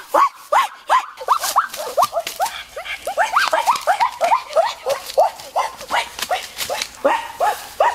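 Animal yelping: short, high cries that rise and fall in pitch, several a second, crowding together and overlapping in the middle.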